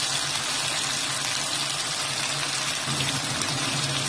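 Seasoned pork chops sizzling steadily in hot oil and melted butter in a frying pan, with a second chop laid into the pan near the end. A low steady hum runs underneath.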